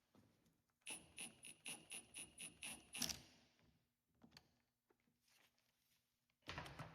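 Impact driver on its low setting turning a bearing puller's screw: a faint run of short pulses, about four a second, over a steady high whine for about two seconds, then near quiet with a few faint ticks.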